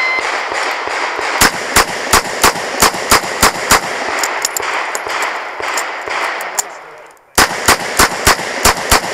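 Smith & Wesson 929 9mm revolver fired in a fast string of eight shots, about three a second. After a break of about three seconds, another equally fast string begins near the end.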